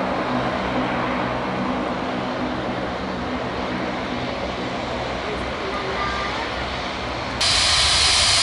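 Airbus A320neo rolling out on a wet runway: steady jet engine noise with the hiss of spray, slowly fading. About seven seconds in it cuts abruptly to a louder, hissier engine whine as the jet taxis.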